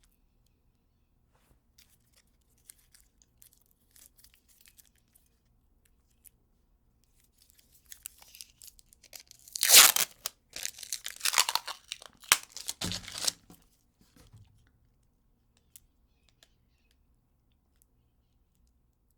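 Adhesive tape: a few faint crinkles, then a loud stretch of ripping as tape is pulled and torn about halfway through, lasting some five seconds, with a short dull knock near its end. Only a few faint ticks follow.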